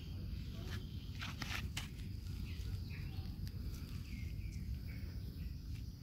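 Outdoor ambience with a steady low rumble and faint high chirps, broken by a few crackling taps of steps on dry ground and leaves between one and two seconds in.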